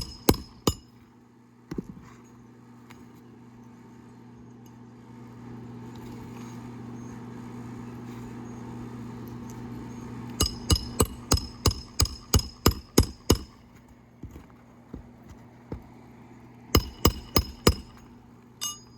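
Hand hammer driving roofing nails into asphalt shingles: a few single strikes near the start, then a quick run of about ten ringing blows, and a shorter run of about five near the end. A steady low hum runs underneath.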